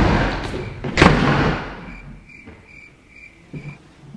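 Two heavy door slams about a second apart, each ringing on in the room, followed by a quieter row of about five short high pips.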